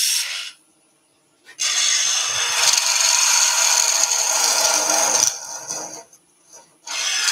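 Wood lathe turning: a gouge cutting into the end of a spinning wooden blank, hollowing it out, with a dry, high-pitched scraping and shaving noise. The cut comes in three spells, stopping for about a second just after the start and for about a second and a half near the end.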